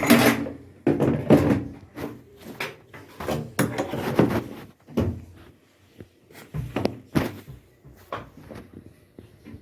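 Irregular metal knocks and clatter from a wrench and parts being handled while an LG washing machine is taken apart. A loud knock opens it, then a run of knocks, a short lull, more knocks, and it dies down near the end.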